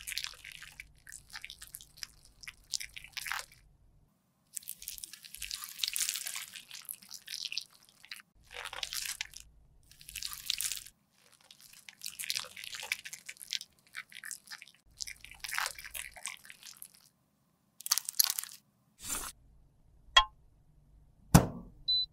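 Makeup being crushed and scraped with a tool in a run of repeated strokes, each lasting a second or two with short pauses between. Four sharp clicks or taps follow near the end.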